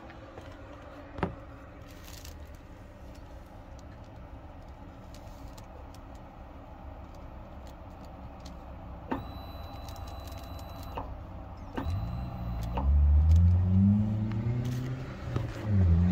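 Second-generation Mitsubishi Eclipse GS-T's electric fuel pump switching on and running with a faint, thin whine when fed 12 volts directly, bypassing the relay, which shows the pump itself works. From about twelve seconds in, a much louder low drone that rises and falls in pitch largely covers it.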